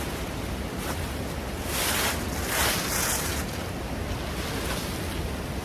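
Wind buffeting the microphone with a low rumble over a steady rushing hiss. The hiss swells briefly a couple of times near the middle.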